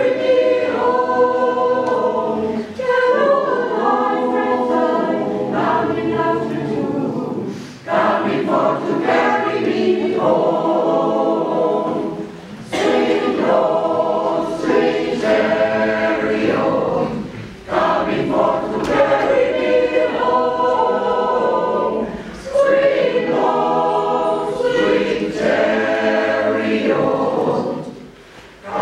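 Mixed choir of men's and women's voices singing a cappella in several parts, in phrases of about four to five seconds with brief breaks between them.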